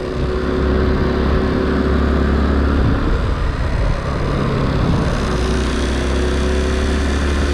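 Honda C90 step-through motorcycle's engine running steadily while riding, with wind rush on the microphone. The engine note shifts briefly about three seconds in.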